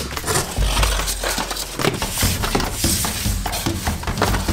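Cardboard scraping, rustling and knocking under hands and knees as a person crawls along a cardboard-box tunnel, over a steady low hum.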